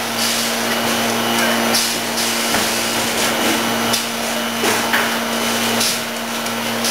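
Horizontal form-fill-seal tray packaging machine running: a steady hum under a constant haze of machine noise, with several short hisses of air from its pneumatics as the station cycles.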